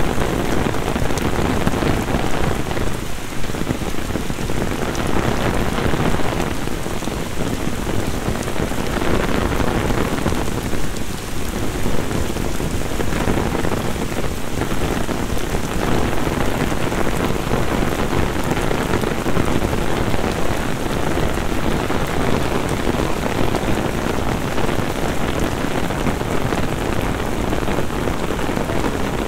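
Heavy downpour of rain pouring onto paved street and puddles, a steady dense hiss of rain hitting the ground.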